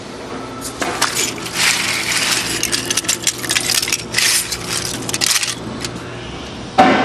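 Industrial grinder with a five-blade open rotor running with a steady hum, material clattering and rattling sharply through the cutting chamber for several seconds. A single sharp knock comes near the end.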